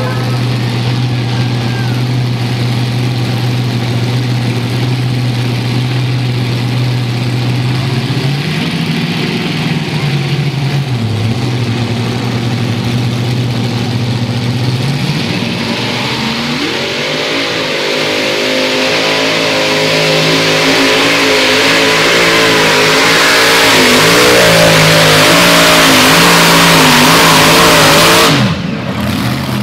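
Supercharged engines of a multi-engine modified pulling tractor idling steadily, blipped once about a third of the way in. About halfway they rev sharply and run at full throttle under load as the tractor launches and pulls the sled, growing louder, before the sound breaks off suddenly near the end.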